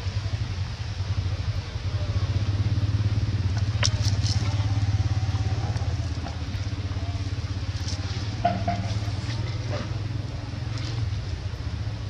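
An engine's low, pulsing rumble, growing louder about two seconds in and easing off after the middle, with a sharp click near the middle.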